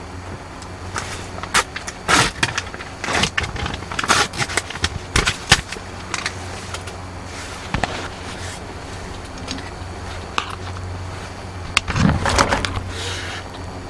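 Irregular clicks, knocks and rustles of objects being handled, loudest in two clusters, over a steady low hum.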